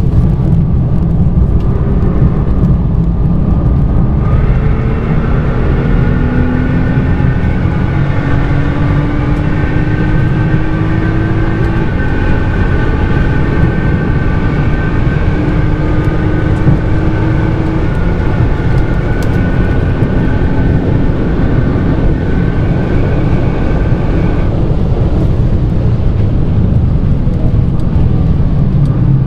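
Nissan GT-R R35's twin-turbo V6, fitted with a Nismo titanium exhaust, running hard at track speed, heard from inside the cabin. It makes a loud, steady drone whose pitch climbs slowly over the first ten seconds or so and then holds, with a high whine over it that stops about 24 seconds in.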